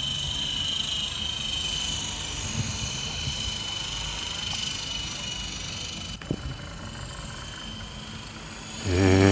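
Electric motors and coaxial rotors of an Esky Big Lama RC helicopter whining steadily as it flies at a distance, over low wind noise. Near the end a louder, brief low hum with many overtones comes in.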